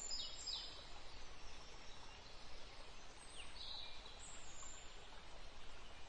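Faint outdoor ambience of small birds chirping: a few short high chirps and quick falling whistles over a soft, steady hiss.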